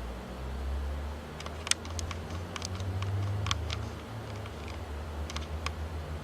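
Camera shutter clicking irregularly, about one or two clicks a second, as a run of photos of the moon is taken, over a steady low hum.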